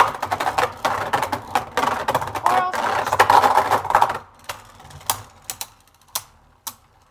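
Two Beyblade Burst spinning tops clashing in a plastic stadium: a dense, rapid clatter of hits and scraping for about four seconds, then thinning to scattered single clicks.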